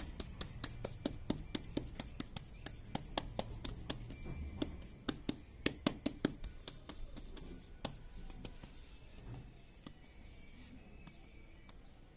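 Bare hand patting and rubbing fresh cow dung smooth in a wooden mould: a quick, irregular run of soft wet slaps and clicks, thinning out and growing fainter over the last few seconds.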